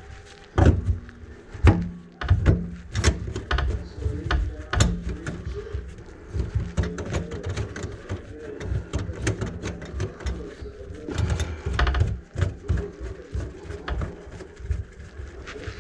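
Electric drain snake's cable being worked through a kitchen sink drain line plugged with grease, rattling and knocking irregularly against the pipe and bucket over a low motor rumble.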